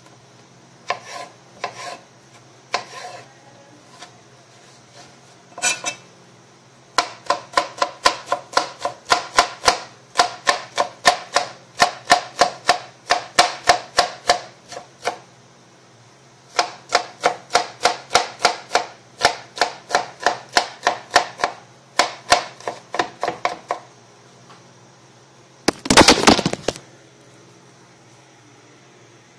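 Knife chopping cucumber on a plastic cutting board: a few single cuts, then two long runs of fast, even chopping at about four strokes a second as the cucumber is finely diced. Near the end comes a louder clatter lasting about a second.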